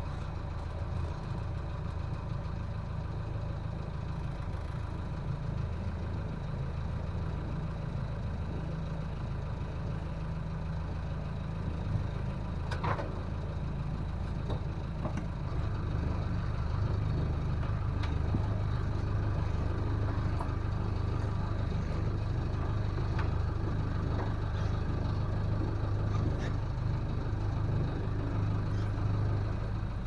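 Tow boat's engine running steadily, a little louder from about halfway through, with a single knock a little before the middle.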